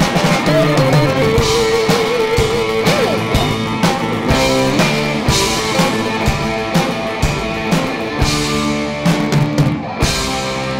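Live rock band playing an instrumental passage of the song. A wavering lead line sings over the band in the first few seconds.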